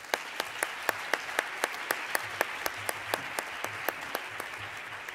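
Audience applauding steadily, with a few louder, evenly spaced claps standing out. The applause eases off near the end.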